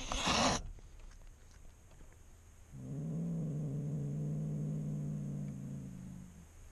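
Cat hissing briefly at the start, then a cat growling low and steady for about three and a half seconds: a warning in a standoff with another cat.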